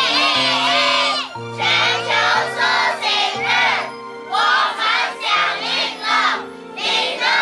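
A group of children and adults shouting together in unison, a string of about eight short called-out phrases with brief pauses between, over background music.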